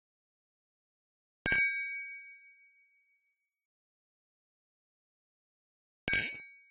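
Two wine glasses clinked together twice, about four and a half seconds apart, each clink leaving a clear ringing tone that fades over a second or so. The second clink is a quick cluster of touches rather than one clean strike.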